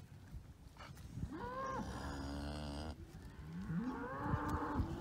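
Cattle mooing: two long calls, the first starting about a second in and lasting over a second, the second beginning about half a second after it ends, rising in pitch at the start and running on.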